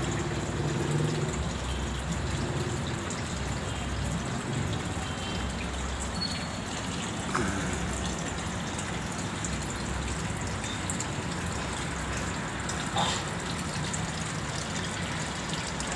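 Three thin streams of water falling from pipe spouts into a koi pond: a steady splashing trickle.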